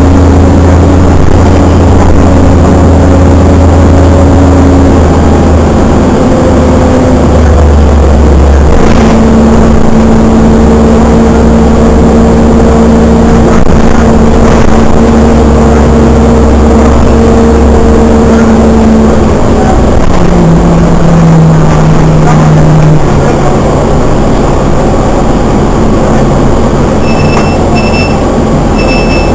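Engine and road noise heard from inside a moving vehicle: a loud, heavy rumble with a steady droning tone that steps lower a few times.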